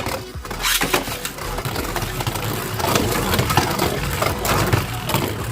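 Two Beyblade Burst Turbo spinning tops, Blizzard-X Gaianon and Kerbeus K4, whirring and rattling in a plastic stadium, with scattered light clicks. They are mostly missing each other rather than making solid contact.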